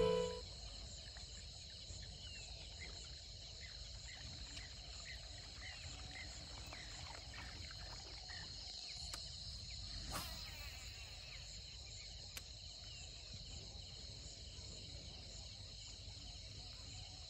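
Faint outdoor ambience of insects chirping: a steady high-pitched drone with small scattered chirps. A single soft click about ten seconds in.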